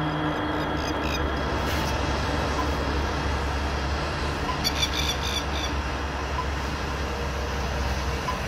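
A steady low mechanical rumble, like a vehicle running, with a quick run of light ticks about halfway through.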